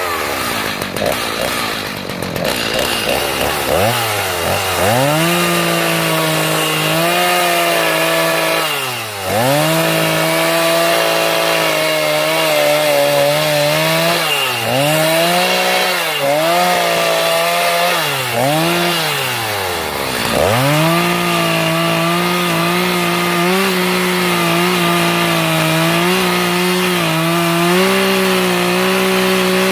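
Stihl two-stroke chainsaw carving into a block of maple. The revs drop and climb back several times as the throttle is let off and reopened, then hold high and steady through the last third.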